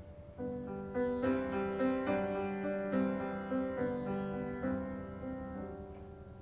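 Background piano music: a gentle phrase of struck notes and chords that begins about half a second in and slowly fades toward the end.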